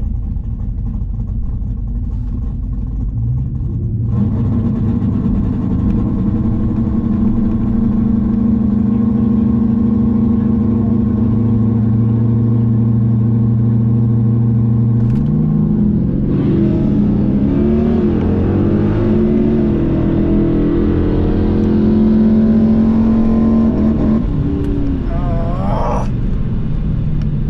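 Tuned Dodge Challenger R/T's 5.7-litre Hemi V8, heard from inside the cabin, running at a steady pitch while the car waits at the starting line. About fifteen seconds in the note changes and the pitch sweeps up and down as the car launches and makes its drag-strip pass.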